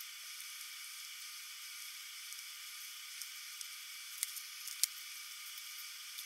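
Steady high hiss, like crackling static, with scattered faint clicks and two sharper clicks about four and five seconds in.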